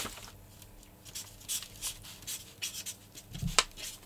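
Felt-tip marker writing on brown paper: a run of short, scratchy strokes as letters are drawn. A soft knock and click about three and a half seconds in.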